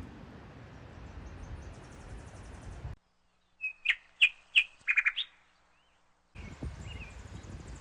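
Songbird chirping: a quick run of about six sharp, high chirps lasting under two seconds, the loudest sound here. It is set between stretches of steady outdoor background noise that cut off and resume abruptly.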